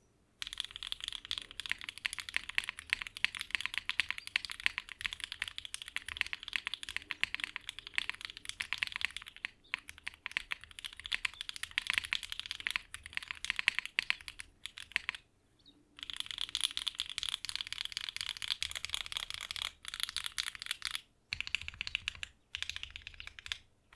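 Fast typing on a mechanical keyboard with HMX Snow Crash linear switches (PA66 nylon housings, POM stem bottoming out on the rails) in an aluminum-plate, gasket-mount SingaKBD Kohaku with GMK keycaps: a dense, steady stream of key clacks that breaks off briefly a few times.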